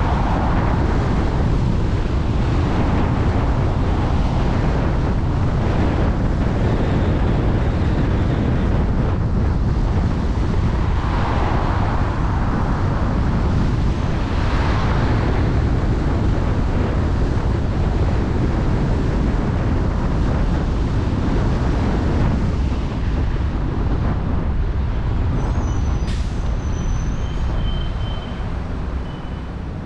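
Wind buffeting an outside-mounted microphone over the road noise of a car driving along city streets. It eases off near the end as the car slows, and a short high-pitched squeal comes through just before it quietens.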